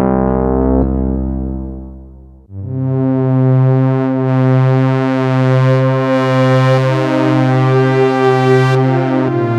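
Arturia AstroLab playing Jupiter-8 emulation synthesizer patches: a chord dies away over about two and a half seconds, then a new sustained pad chord comes in and is held, swelling gently about once a second.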